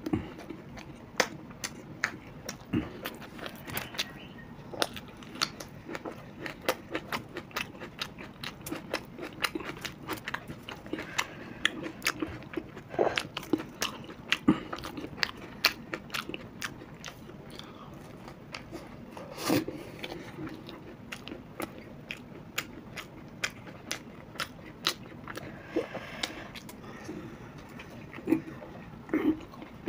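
Close-miked crunching and chewing of crisp fried snacks, many sharp irregular crunches with a few louder bites.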